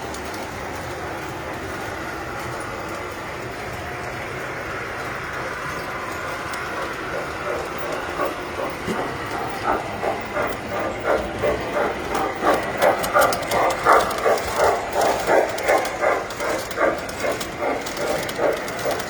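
A tinplate model train running on the layout, a steady running noise with a rhythmic beat of about two to three pulses a second. The beat sets in about eight seconds in, grows louder and eases off near the end.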